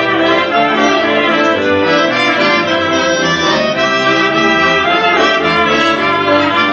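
Polish folk band playing a Christmas carol, with trumpet leading over clarinet and violin. It is a phone recording.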